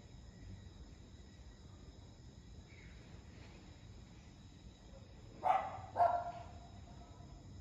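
A small dog barking twice in quick succession, about half a second apart, a little past the middle, over steady insect chirring.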